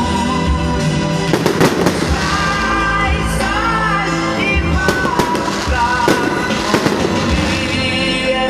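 Fireworks going off in several sharp bangs over loud music with a melody.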